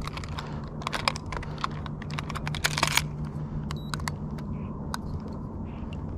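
Small clicks and ticks from handling a handheld digital fishing scale and its hook clip, in quick irregular clusters about a second in and again around three seconds in, over a steady low hum.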